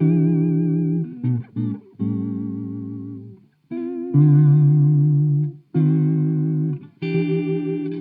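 Electric guitar chords played through an Old Blood Noise Endeavors Black Fountain oil can delay pedal set for heavy modulation, giving a warbling, lo-fi vibrato on every note. A series of held chords, several cut off short, with a brighter chord near the end.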